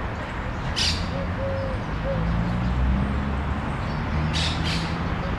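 Birds giving short harsh squawks, once about a second in and twice in quick succession near the end, with a few soft low cooing notes between them, over a steady low rumble of city traffic.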